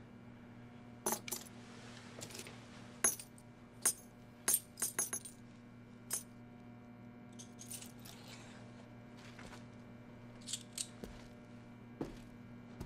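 Small metal objects handled on a workbench: a dozen or so sharp metallic clinks and clicks at irregular intervals, bunched in the first half and sparser later, over a steady low hum.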